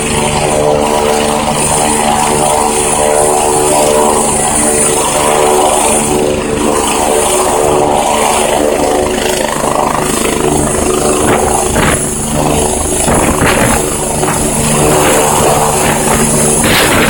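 Airbus EC-145 helicopter running with its twin turboshaft engines up and the main rotor turning: a steady high turbine whine over the rotor's low steady hum, with a gusty rushing noise growing in the second half.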